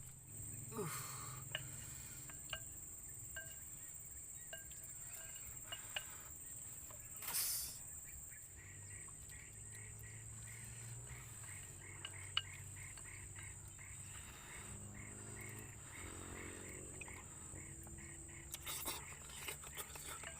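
Forest insects droning in a steady high-pitched tone, joined about nine seconds in by a rhythmic chirp repeating a few times a second. Scattered light clicks and a brief rustle about seven seconds in.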